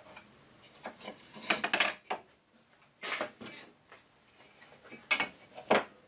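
Wooden boards handled on a wooden workbench: rubbing and scraping as they are shifted and marked, with knocks as the boards and a square are set down. Two sharp knocks near the end are the loudest.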